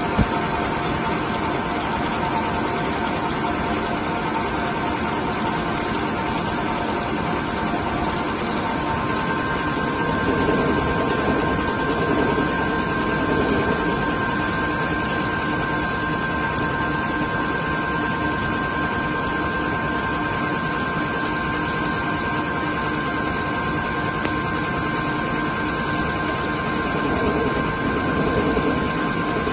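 CNC lathe turning a metal bar under flood coolant: steady machine running noise with a constant high whine and the hiss of coolant spray.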